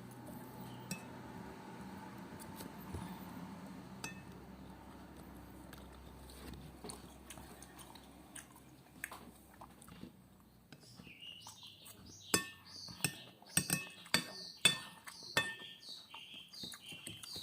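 Eating sounds: a spoon clinking against a plate, faint at first, then a quick run of sharp clicks and clatter that grows louder over the last several seconds.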